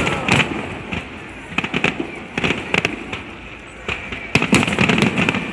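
Fireworks display going off: an irregular series of sharp bangs and crackles, coming thicker and faster from about four seconds in.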